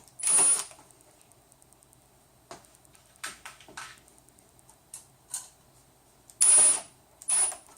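Hand assembly of an aluminium frame with bolts and nuts: scattered light metal clicks, and three short rasping bursts near the start and twice near the end as a bolt is turned and tightened.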